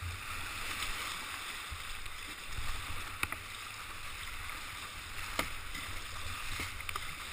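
Kayak paddling down a fast, shallow river: steady rushing of the current with paddle strokes splashing, and a couple of sharp knocks about three and five and a half seconds in.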